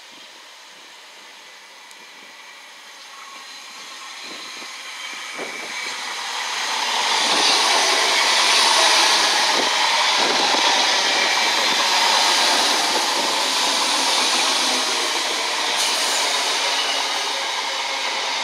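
Class 315 electric multiple unit approaching and running past close by. It grows louder over several seconds to a steady rush of wheels and motors, then eases slightly as the carriages go by.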